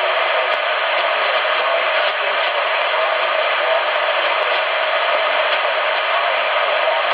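CRT SS 9900 CB radio receiving in upper sideband on 27.555 MHz: a steady hiss of band noise from its speaker.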